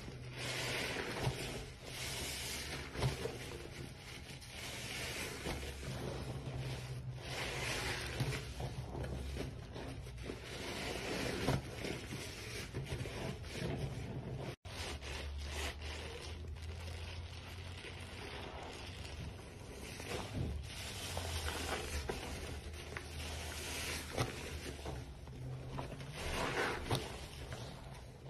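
Rubber-gloved hands squeezing and kneading a soapy sponge in thick detergent foam: wet squelching and rubbing of suds, coming in uneven swells.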